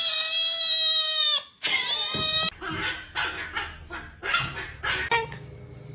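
A dog howling in one long held note, then a shorter call that rises and falls, then a quick run of short yips and barks.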